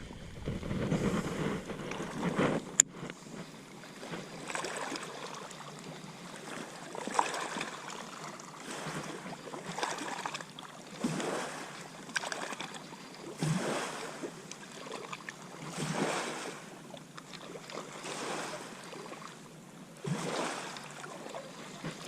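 Small waves lapping against the lake shore in soft, irregular washes every second or two, with a single sharp click about three seconds in.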